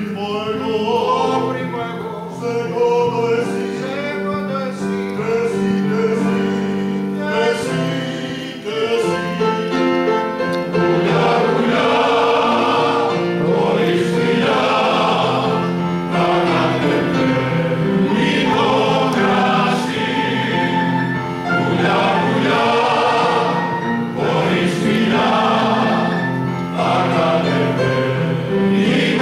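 Men's choir singing a song in several voices; the singing grows fuller and louder about ten seconds in.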